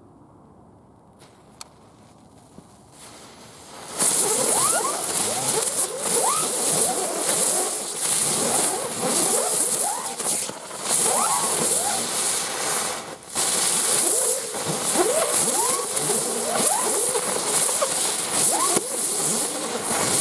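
Ten packs of Lesli Creepers ground spinners going off together: after a few quiet seconds the hissing swells in and turns loud about four seconds in. A dense, steady fizzing follows, shot through with many short rising whistles as the spinners whirl.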